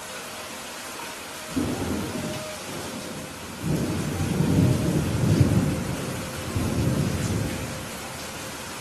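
Thunder rumbling over steady rain. A short rumble comes about a second and a half in, then a longer, louder roll builds from about three and a half seconds and dies away near the end.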